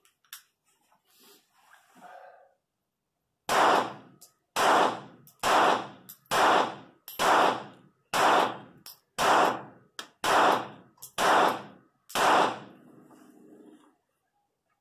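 Ten shots from a small .25 ACP pocket pistol, fired one at a time about a second apart, each a sharp crack with a short echo.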